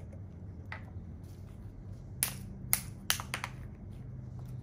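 Plastic bottle cap being twisted open: one light click about a second in, then a quick run of five or six sharp clicks a little after two seconds in.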